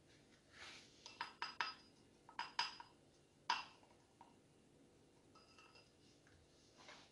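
Glass dessert cups clinking: a wooden spoon knocking against the glass and the cups being handled and set down, a string of short ringing clinks with the loudest about three and a half seconds in, then a few faint taps.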